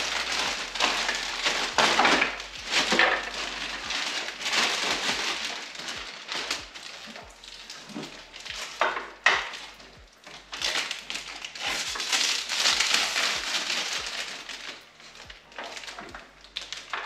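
Clear plastic bag crinkling and rustling in uneven stretches as it is pulled off a car tail light assembly, with a few light clicks in the middle.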